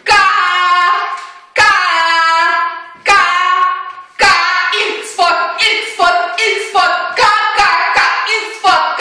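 A woman screaming at full voice: three long high screams, then a quick string of shorter cries, two or three a second.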